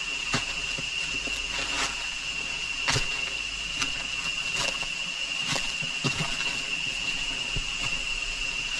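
Footsteps on a rainforest trail, a sharp step or knock every half second to a second, over a steady high-pitched insect drone.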